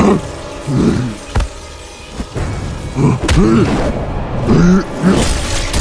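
Cartoon fight sound effects: a few sharp hits and booms, with short pitched cries in between, over music.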